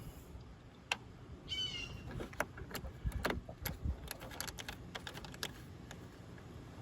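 Scattered light clicks and taps of hands and parts being worked at a car battery's terminal as the small terminal caps come off. A bird chirps once about one and a half seconds in.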